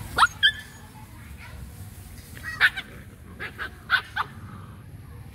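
Dogs play-fighting, giving short, high yelps and barks: two near the start, the first rising in pitch, then a quick run of about five between three and four seconds in.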